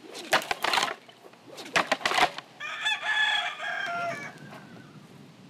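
A rooster crows once, a long call that drops in pitch as it ends, about halfway through. It comes just after two short, loud swishing noises a second or so apart.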